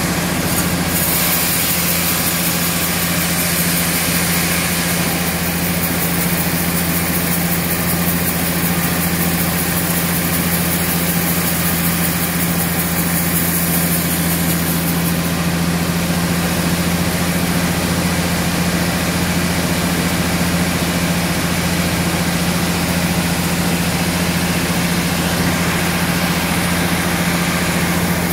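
Large band sawmill running steadily as its blade cuts lengthwise through a big, weathered, dry tamarind log fed through by hand: a constant low machine hum under a broad hiss from the cut.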